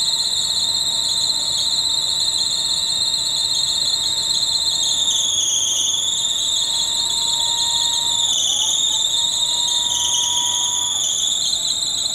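A car squeaking: a continuous high-pitched squeal that wavers slightly in pitch, described as squeaking like a motherfucker.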